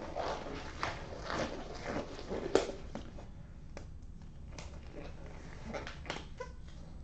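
Light rustling and scattered small clicks from handling objects at a table, with one sharper click about two and a half seconds in.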